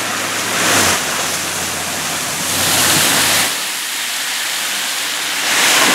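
A car's tyres ploughing through floodwater over the road, throwing up a rushing spray that swells and eases three times.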